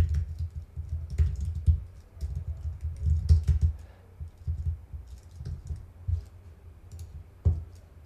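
Typing on a computer keyboard: quick bursts of keystrokes, each a sharp click with a dull thump. They are busiest in the first half and sparser after about four seconds, with one harder key press near the end.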